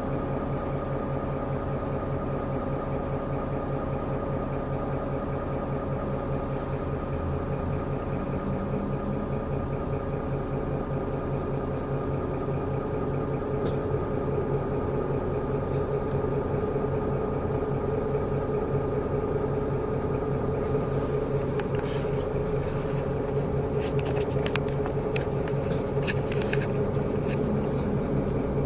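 City bus interior: the bus's engine and drivetrain hum steadily, getting a little louder about halfway through. Near the end there is a run of rattles and clicks.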